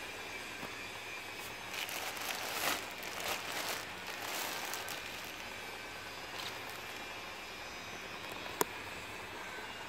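Steady background noise with a faint steady whine, a few seconds of crackly rustling about two seconds in, and a single sharp click near the end.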